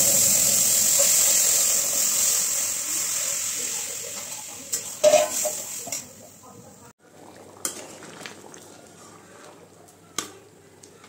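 Water poured into a hot kadhai of fried masala, hissing and sizzling loudly and dying down over about six seconds. A few sharp clinks of a spatula against the pan follow.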